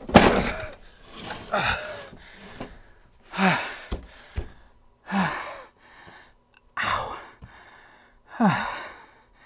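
A heavy cash register set down with a thump on a wooden bench, followed by a man panting hard from the lift, with five loud gasping breaths spaced about one and a half to two seconds apart.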